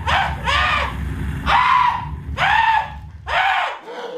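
A performer's voice letting out a string of loud, high-pitched theatrical shrieks, each rising then falling, over a low rumble that stops near the end.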